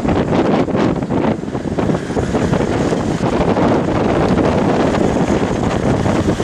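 Wind buffeting the microphone over the steady rumble of a vehicle driving along a road.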